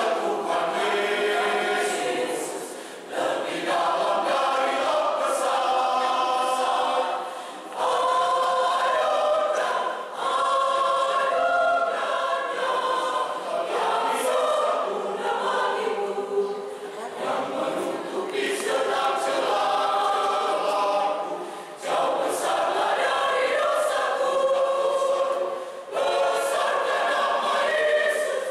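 Mixed church choir of men and women singing together, phrase after phrase, with short breaks between phrases every few seconds.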